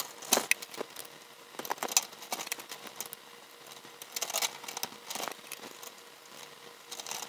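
Hand wire strippers biting into and pulling insulation off the ends of fixture wires: a series of irregular small clicks and short scrapes.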